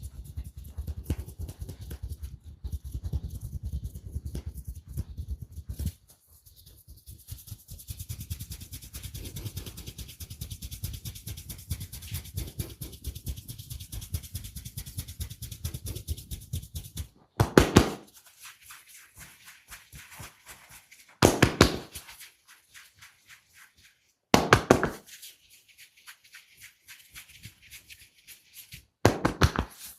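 Rapid, rhythmic percussive massage strokes tapping on the body. The steady tapping stops more than halfway through, and four loud short bursts of slapping strikes follow, each under a second and a few seconds apart.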